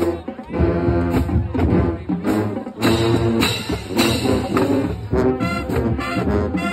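High school marching band playing a brass tune, trumpets and low horns over a steady percussion beat.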